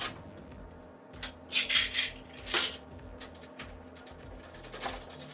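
Metal tools and parts clinking and rattling as they are moved around on a workbench, with a loud burst of clattering from about one to two and a half seconds in and a few lighter clicks after.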